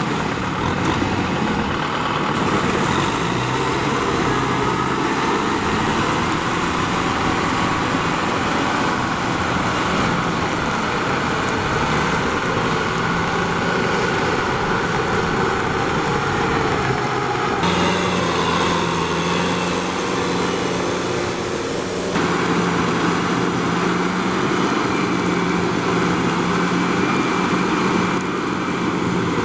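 Kubota M6040SU tractor's diesel engine running steadily under load while it drives a rotary tiller through deep, wet mud. The engine note shifts abruptly twice, about 17 and 22 seconds in.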